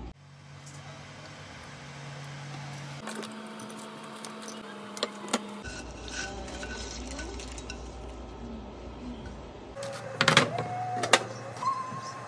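Background music with held low notes that change every few seconds, over scattered clinks and knocks of kitchen dishes and a frying pan, the loudest a cluster of knocks near the end.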